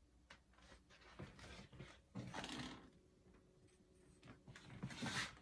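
Faint rustling and handling noises with a few light clicks, in two main bursts.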